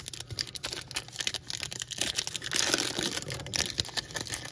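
A trading card pack wrapper being torn open and crinkled by hand: a dense run of small crackles and rustles, busiest around the middle and again near the end.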